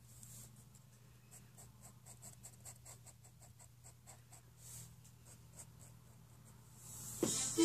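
Felt-tip marker drawing on paper: faint, irregular scratchy strokes of the tip across the sheet. Near the end, music comes back in.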